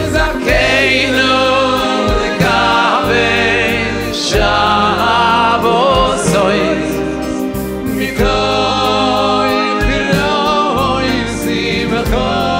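Voices singing a Sabbath table song (zemer) together, with band accompaniment: a steady bass line and light, regular percussion.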